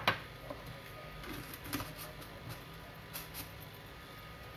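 A small plastic salt jar set down on a stone countertop with one sharp click right at the start, followed by a few faint light taps and clicks of kitchen items being handled over quiet room noise.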